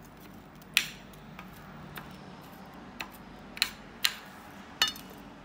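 Metal spoon clinking against a ceramic plate while stirring dyed rice: about six irregular taps, the loudest about a second in and near the end, the last one ringing briefly.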